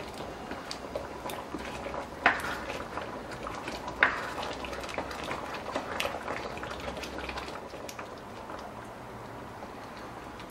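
Thick curry bubbling in a frying pan while a ladle stirs through it, with many small scrapes and clicks and two sharp knocks of the ladle against the pan about two and four seconds in. The stirring dies down after about eight seconds, leaving the simmer.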